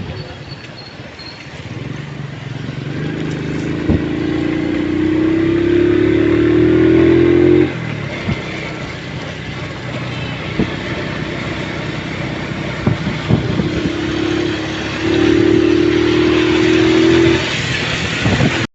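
Vehicle engine pulling up with its pitch rising over several seconds, then dropping suddenly about eight seconds in, and pulling up again from about fifteen seconds before easing off near the end, over a steady hiss of road and wind noise.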